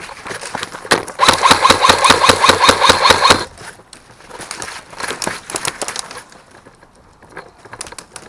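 Airsoft gun firing on full auto: a loud rapid burst of about ten shots a second lasting roughly two seconds. It is followed by quieter shorter bursts and a few single shots.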